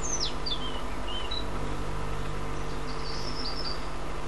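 Small birds chirping in short, quickly falling whistled notes, a few near the start and another brief phrase about three seconds in, over a steady low hum.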